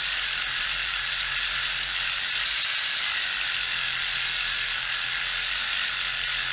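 Dspiae rechargeable reciprocating sander running at its higher speed, its small sanding tip working against a plastic kit part to sand out an ejector pin mark: a steady, even buzz and hiss.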